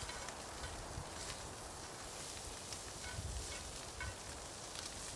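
Campfire cooking: a cast iron skillet of ground beef sizzling over the fire, a steady hiss with scattered faint crackles and ticks.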